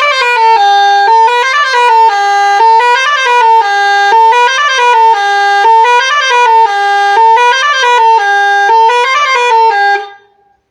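Multi-tune electronic musical horn on a bus playing a looping melody: a short phrase that steps up and back down, repeated about every one and a half seconds, then cut off about ten seconds in.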